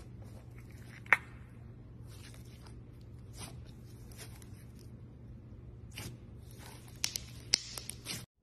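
Hands squeezing and kneading glossy slime, giving wet clicks and crackles over a low steady hum, with one sharp click about a second in and a cluster of clicks near the end.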